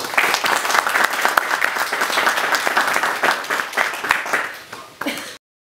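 Audience applauding: dense, steady clapping that thins a little near the end and cuts off abruptly about five seconds in.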